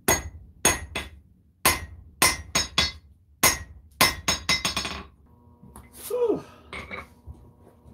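Hand hammer striking red-hot 1095 high-carbon steel knife blade on an anvil, about thirteen ringing blows in five seconds, faster toward the end, while forging a distal taper into the blade. The hammering then stops.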